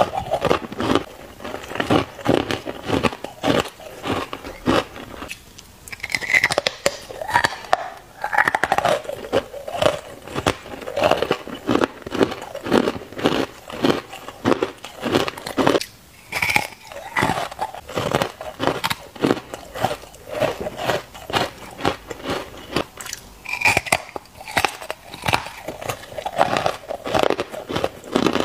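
Hard ice chewed in the mouth close to the microphone: continuous rapid crunching, several crunches a second, with a few sharper, louder crunches along the way.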